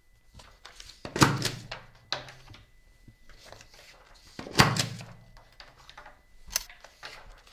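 Heavy knocks of an object set down hard on a tabletop: three loud thunks, about a second, four and a half seconds and six and a half seconds in, each with a short ringing tail, with softer knocks between. A faint steady high tone runs underneath for most of it.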